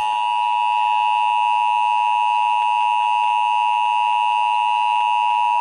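Emergency Alert System attention signal: the two-tone alert (853 Hz and 960 Hz together) held as one loud, unbroken, steady chord.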